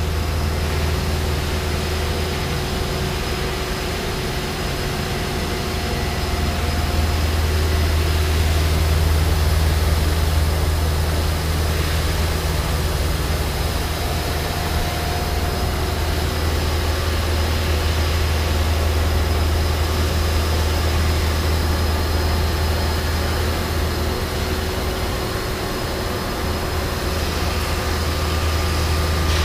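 An ESCO PM III 1530 abrasive fast-wire CNC profile saw running steadily while cutting a dense polyisocyanurate foam block. It makes a constant low hum with a hiss over it and a faint high whine.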